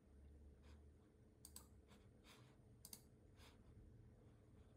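Faint, scattered computer mouse clicks, some in quick pairs, over a low room hum.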